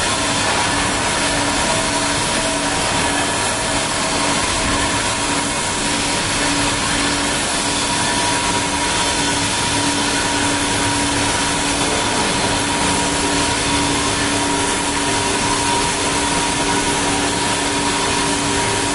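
CNC plasma cutting torch cutting through steel plate: a steady, loud hiss with a constant low hum and a higher whine held underneath.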